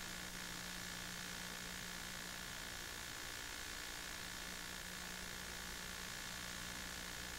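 Steady hiss with a faint low hum and no distinct events: the background noise of an old film-to-video transfer with no live sound.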